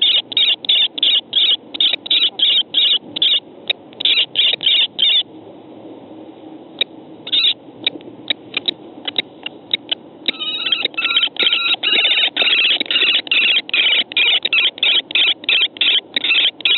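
Two female common kestrels calling at each other in a vocal skirmish: rapid runs of shrill repeated calls, about three a second. The calling thins to a few scattered notes about five seconds in, then resumes after about ten seconds, denser and more ragged.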